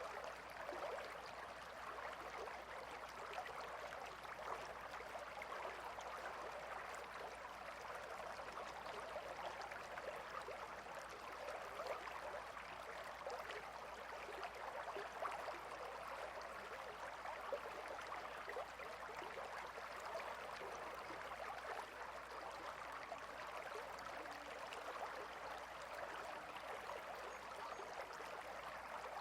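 Gentle river water flowing steadily, a continuous babbling rush with small splashes and gurgles throughout.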